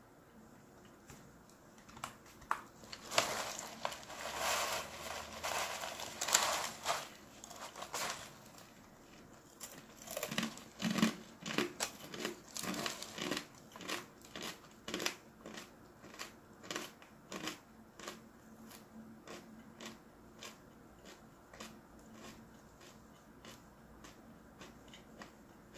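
A kraft-paper and plastic snack bag crinkling as it is handled for several seconds. Then comes a run of evenly spaced crunching chews of dried food slices, fading toward the end.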